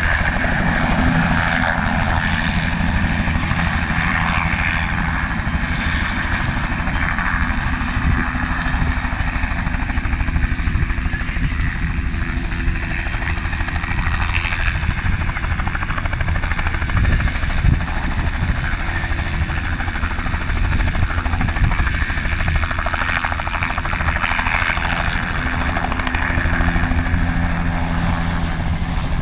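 Bell 206L-3 LongRanger III helicopter's two-blade main rotor and single turbine engine running as it hovers low and flies off. The steady blade chop sits under a high, steady turbine whine.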